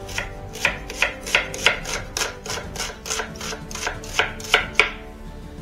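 Kitchen knife chopping an onion on a cutting board: a steady run of about fifteen knocks, roughly three a second, stopping shortly before the end.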